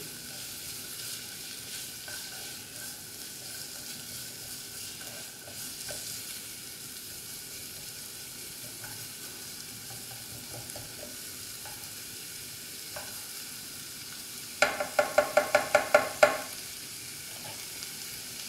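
Chopped red onion and garlic sizzling steadily in olive oil in a small nonstick pan, with a few light scrapes of a spatula. Near the end comes a quick run of about ten loud, rhythmic spatula strokes against the pan, lasting under two seconds.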